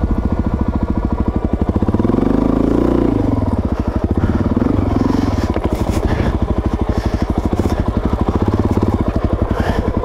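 Suzuki DR-Z400S's single-cylinder four-stroke engine running at low revs, picking up and dropping back about two seconds in and again briefly around five seconds.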